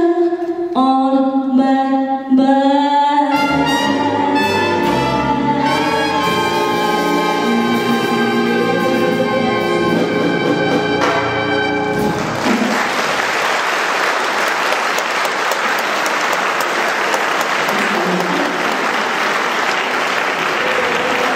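Swing big band and female singer ending a song. The singer holds the last phrase, then the full band (saxophones, trumpets, trombone, piano, double bass and drums) comes in on a long final chord that cuts off about twelve seconds in. Audience applause follows and runs through the rest.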